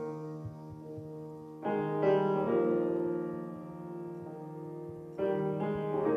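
Grand piano playing slow, sustained chords. A new chord is struck about one and a half seconds in and again about five seconds in, each ringing out and fading.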